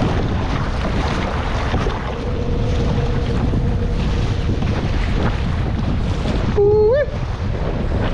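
Wind buffeting the microphone over choppy water that splashes against a kayak being paddled. About seven seconds in, a short pitched sound that bends upward at its end sounds briefly.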